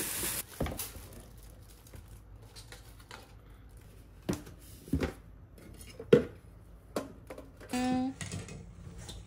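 Unboxing and handling a stainless-steel toaster: cardboard and packaging rustling at first, then scattered clicks and knocks as the toaster is set down and its metal body handled, the loudest knock about six seconds in.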